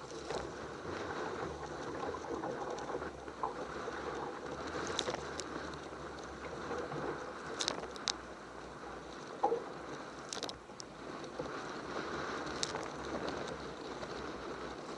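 Water and wind noise around a kayak at sea, a steady rushing hiss broken by a few brief light ticks and splashes.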